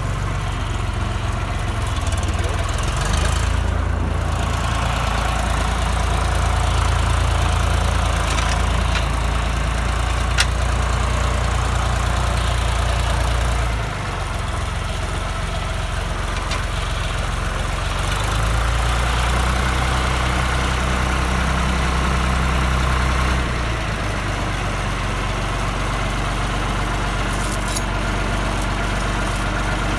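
John Deere 2240 tractor's diesel engine running, its speed rising about three seconds in, dropping back near the middle, rising again shortly after and settling back a few seconds before the end. A tow chain clinks near the end.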